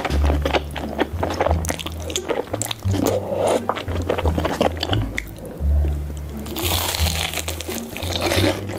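Close-miked eating: chewing of soft tteokbokki rice cakes with scattered wet clicks, then a crunchy bite into a fried Korean cheese corndog about two-thirds of the way through, crackling for under two seconds. Under it runs background music with a deep repeating bass line.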